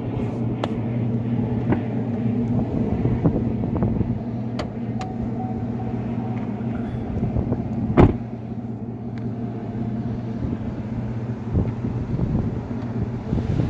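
GMC Sierra pickup's engine idling steadily, a low even hum, with a few light clicks and a single sharp knock about eight seconds in.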